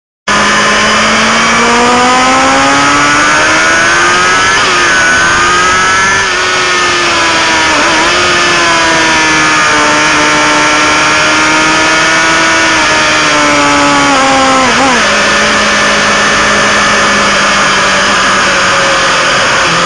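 Sport motorcycle's inline-four engine heard on board at track speed, with steady wind rush. It cuts in suddenly, climbs in pitch over the first few seconds, then runs hard with brief sharp drops in revs three times, the last one settling to a lower, steady note.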